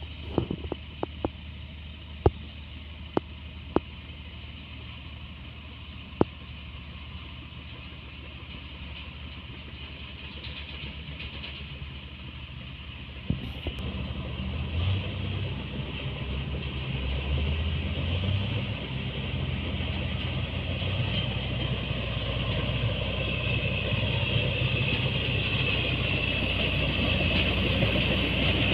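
Bulldozer engine running steadily, with several sharp clanks in the first few seconds. From about halfway it grows louder and its pitch rises as it works harder.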